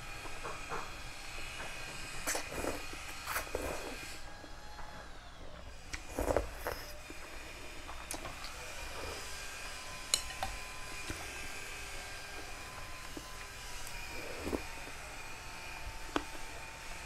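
Someone slurping and chewing noodle soup, with several short slurps in the first half, the loudest about six seconds in. Later, a few sharp clicks of a metal spoon and chopsticks against the bowl, over a faint steady hum.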